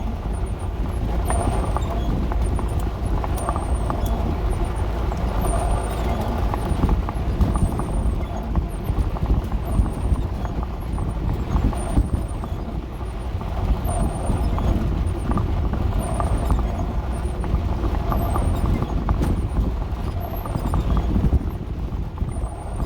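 Dodge A108 van driving on a rough, muddy road: a steady engine and road rumble, with frequent small knocks and rattles from the body.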